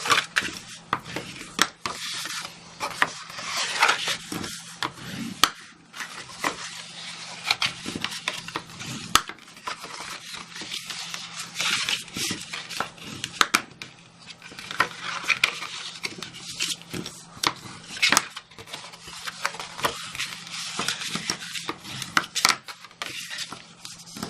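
Bone folder rubbing along scored cardstock as the folds are creased and burnished: repeated short scraping strokes, with sharp taps and clicks of the card between them.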